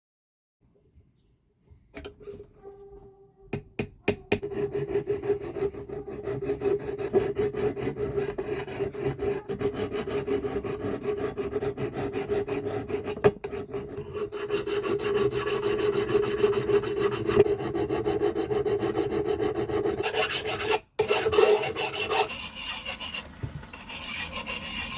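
A hand file rasping on a hatchet in rapid, continuous strokes. It starts about two seconds in and breaks off briefly near the end.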